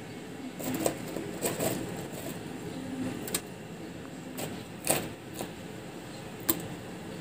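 Fried bread slices being placed one by one into cooled sugar syrup in a metal pan: about half a dozen short, sharp taps as the pieces and fingers meet the syrup and pan.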